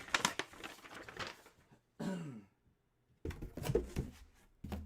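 Handling noise of trading cards and packaging on a table: soft clicks and rustles, a short murmured vocal sound falling in pitch about two seconds in, then dull thumps and clicks in the last second and a half.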